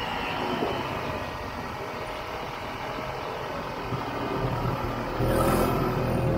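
1967 Ski-Doo Olympic snowmobile's two-stroke engine running steadily as the sled is ridden slowly over snow. About five seconds in, background music comes in and becomes the loudest sound.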